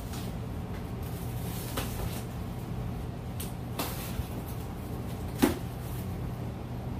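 Cardboard shipping box being handled and opened on a counter: a few sharp knocks and rustles from its flaps and contents, the loudest about five and a half seconds in, over a steady low hum.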